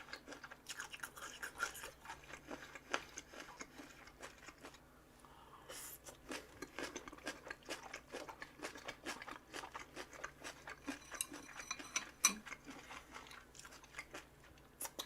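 Close-miked chewing and biting of food, with many small crunches and wet clicks, and a brief lull about five seconds in.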